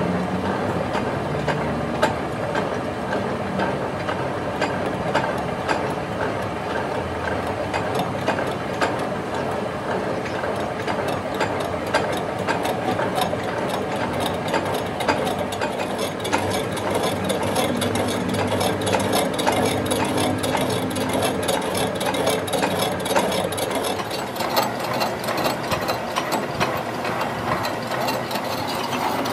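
A vehicle's drivetrain running with a wheel spinning: a steady mechanical run full of rapid, uneven clicks and rattles.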